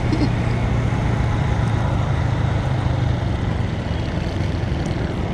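Motorcycle engine running steadily at cruising speed, a continuous low hum under the rush of surrounding road traffic.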